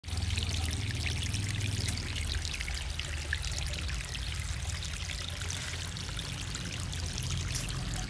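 Water pouring from a PVC pipe outlet onto pebbles and gravel in a small cement fountain: a steady splashing trickle, with a low steady hum beneath it.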